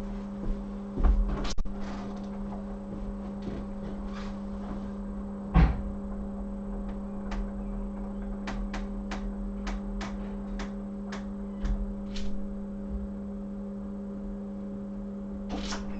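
Small objects being handled and set down on a bench: a few knocks, then a run of light clicks in the middle, over a steady low electrical hum.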